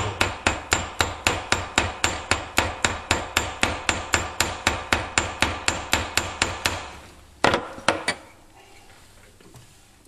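Hammer tapping quickly and evenly on the end of a metal rod held in a bench vise, about five light blows a second, peening the rod's head flat like a rivet head. About seven seconds in the tapping stops, and two harder blows follow.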